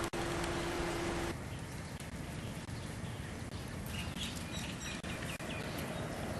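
Outdoor ambience: a steady low hum that cuts off abruptly a little over a second in, then a background haze with small birds chirping a few times near the middle.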